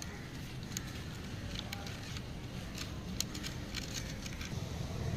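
Diecast Toyota Coaster model bus rolled by hand over rough concrete: irregular small clicks and grit from its wheels, over a low steady rumble.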